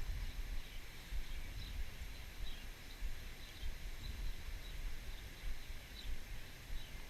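Outdoor creek-side ambience: wind rumbling unevenly on the microphone, with scattered short, faint bird chirps.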